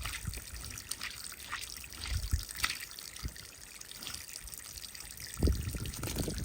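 Water trickling and splashing, with scattered small clicks and a low thump about five and a half seconds in.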